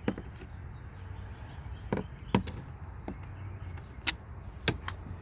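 About half a dozen scattered sharp clicks and knocks of a screwdriver against plastic dashboard trim as the trim piece is worked off, over a steady low hum.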